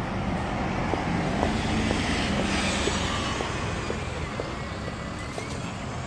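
Double-decker bus's engine and tyres passing close by and pulling away down the street, at its loudest in the first half and easing off as it goes, with a faint rising whine near the end.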